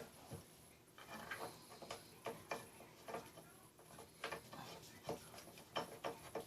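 Faint, irregular clicks and light ticks of a hand screwdriver driving a crib screw into its threaded connector, the metal parts catching as it turns.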